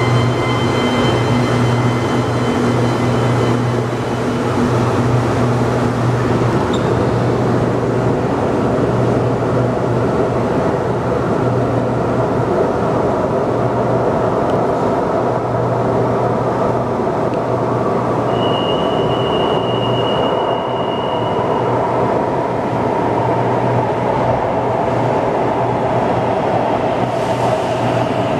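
CAF AS-14 metro train running through a tunnel: a steady, loud rumble of wheels on rail and running gear with a low hum underneath. About two-thirds of the way through, a high steady tone sounds for about three seconds.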